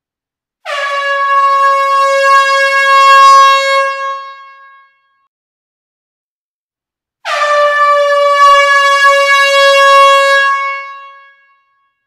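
Air horn sounding twice, each a steady high note of about four seconds that tails off at the end, the two blasts a few seconds apart.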